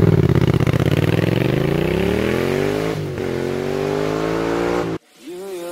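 Yamaha MT-07's parallel-twin engine through a Shark Street GP aftermarket exhaust, accelerating hard: the pitch rises for about three seconds, drops at a gear change, then climbs again. The sound cuts off suddenly about five seconds in.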